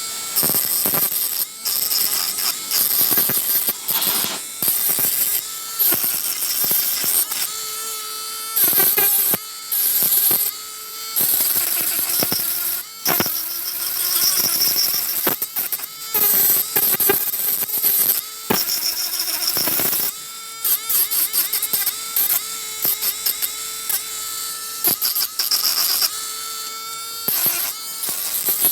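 Small handheld electric polishing/sanding machine running, a motor whine with a high sanding hiss, working the rough body filler on a miniature car body. The sound keeps dipping and coming back every second or two as the head is pressed on and lifted off.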